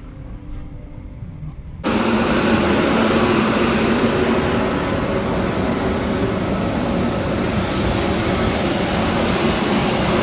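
Airbus A320 jet engine noise: a low cabin rumble that jumps suddenly louder about two seconds in to a steady rush with a high, even whine.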